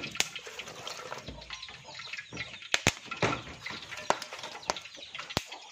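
Live small freshwater fish flapping and thrashing in a stainless steel pot, with wet slapping and several sharp knocks against the metal. The fish have just been salted, and their jumping stirs the seasoning in by itself.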